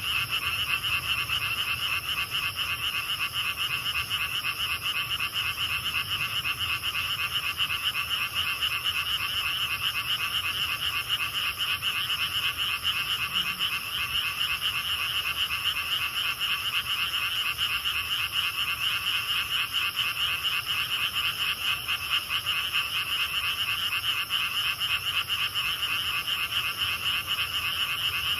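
A dense night chorus of many frogs calling at once, a continuous rapid pulsing that never lets up, with a steady high-pitched drone of grass insects above it.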